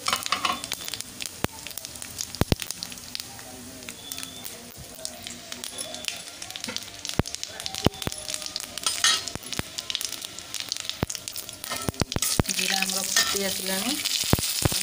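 Cumin seeds and dried red chillies sizzling and crackling in hot ghee in an aluminium kadai: the tempering (tadka) for dal fry. Near the end a metal spatula stirs and scrapes the seeds around the pan.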